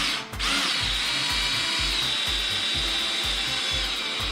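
Cordless drill driving a screw into wood at a slow, steady speed, with a steady whine; it pauses briefly just after the start, then runs on.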